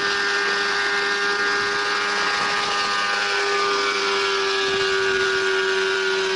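Small engine of a homemade helicopter running steadily, a buzzing tone with overtones whose pitch sinks slightly.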